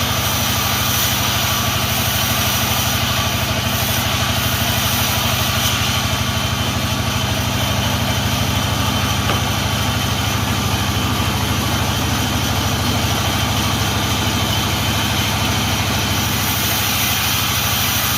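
Engine of a log-sawing machine running steadily at an even speed, with no change in pitch or loudness.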